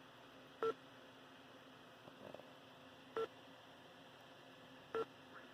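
Near silence broken by three short, faint electronic blips, each a brief two-tone beep, about a second, three seconds and five seconds in.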